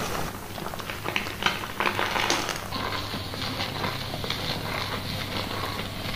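Gloved hands scrubbing a thick shampoo lather through long hair: a dense, wet crackling and squishing of foam. A steady low hum runs underneath.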